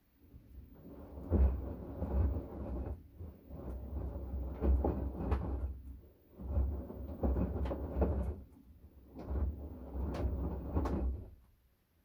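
LG direct-drive front-loading washing machine drum turning the wash load in four bouts of about two and a half seconds each, with short pauses between, the clothes and water tumbling and thudding with a low rumble.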